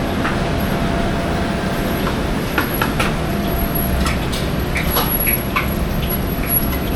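Night-market street ambience: a steady rumbling din with scattered sharp clinks and clacks throughout.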